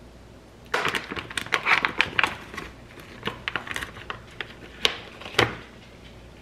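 Plastic packet of sliced prosciutto crinkling and crackling as it is peeled open and the slices are pulled out. It is a rapid run of sharp crackles that starts about a second in, with a few louder snaps near the end.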